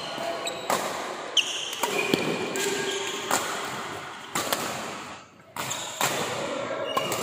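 Badminton doubles rally: rackets smack the shuttlecock about once a second, with short squeaks of sneakers on the court floor between the hits, echoing in the hall.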